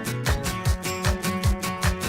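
Background music with a steady beat, about two and a half beats a second.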